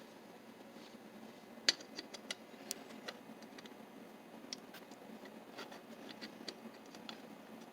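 Light, irregular clicks and taps of small metal parts being handled and fitted into an antique Russwin mortise lock during reassembly.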